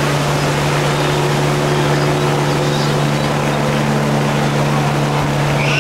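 Helicopter droning steadily as it flies away after lifting off, heard over a loud, steady rush of water.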